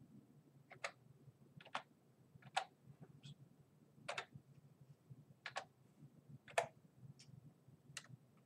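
Computer keyboard keys pressed slowly one at a time, about ten separate clicks with gaps of roughly a second between them, over a faint low hum.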